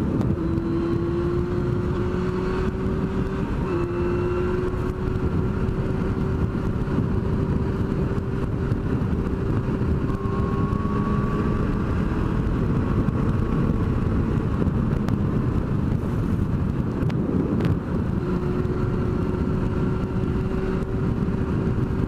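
Yamaha FZR sport bike's inline-four engine pulling at high revs at highway speed, its pitch climbing slowly, with a short break and a slightly lower restart about four seconds in like an upshift. Heavy wind noise rushes over the helmet-mounted camera throughout.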